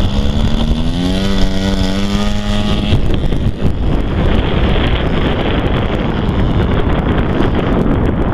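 DLE-40 twin-cylinder two-stroke petrol engine of a large radio-controlled model plane opening up for its takeoff run, its pitch rising over the first three seconds. After that the engine sinks under heavy wind noise on the microphone as the plane climbs away.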